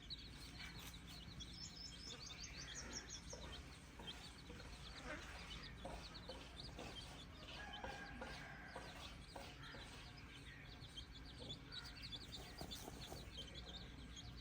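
Chickens clucking faintly amid a dense run of fast, high-pitched chirping.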